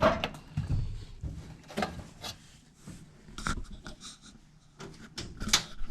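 Scattered scrapes and light clicks of parts being handled, about half a dozen separate rubbing strokes spread over a few seconds.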